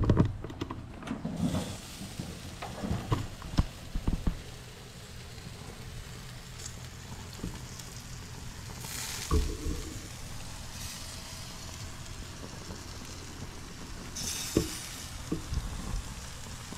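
Bacon-wrapped chicken drumsticks sizzling steadily on a gas grill's grates. A few knocks in the first seconds as the grill lid is opened, and two short louder bumps with bursts of hiss near the middle and near the end.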